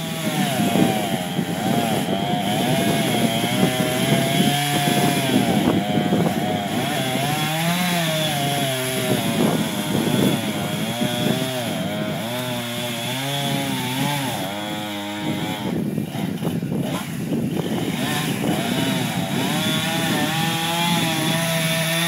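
Gas chainsaw running under load as it cuts into an oak trunk, its engine pitch repeatedly dipping and rising as the chain bites.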